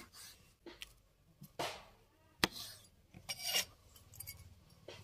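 Kitchen knife cutting a green bell pepper on a wooden cutting board: a handful of separate crisp crunches as the blade goes through the flesh and taps the board, the sharpest about halfway through.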